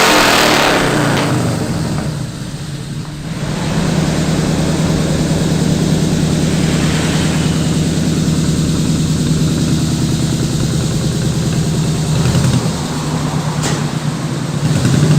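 Engine-like running sound of a radio-controlled model construction vehicle: a steady hum that dips about two seconds in, then holds level, with short bursts of noise near the end.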